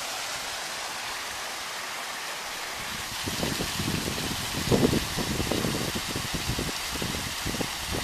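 Small stream of water spilling over and between granite boulders: a steady rushing hiss. From about three seconds in, irregular low rumbling gusts come in on top and grow louder.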